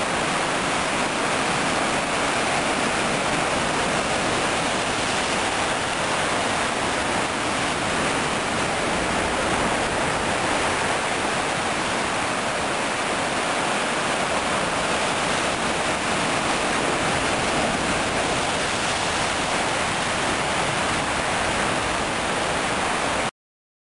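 Sea surf churning over rocks: a steady rushing noise with no separate wave crashes standing out. It stops abruptly near the end.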